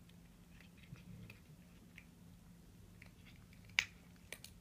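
Cat chewing a chicken wing: scattered small crunches and clicks, with one sharp crack nearly four seconds in and a smaller one just after.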